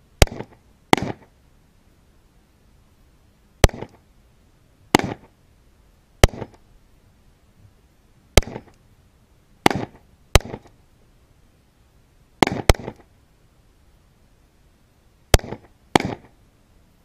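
Beretta M9 9mm pistols being fired: about a dozen sharp shots at uneven intervals, some in quick pairs only a fraction of a second apart, each with a short echo.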